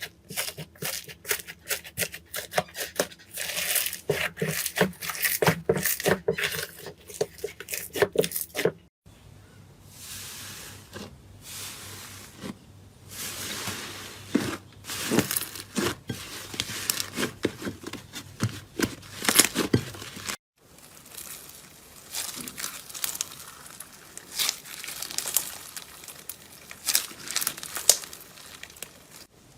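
Slime being squeezed, stretched and poked by hand, making rapid wet crackling and popping clicks, with short breaks about nine and twenty seconds in.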